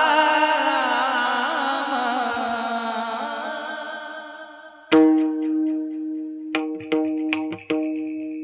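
Devotional kirtan music: a wavering, ornamented melodic line over a steady held drone, fading away over the first few seconds. About five seconds in a sharp percussive strike lands, followed by a few quicker strikes, while the drone continues.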